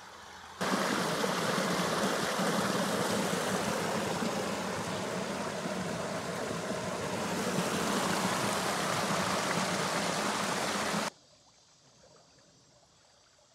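Creek water flowing, a loud steady rush that starts suddenly about half a second in and cuts off suddenly about eleven seconds in.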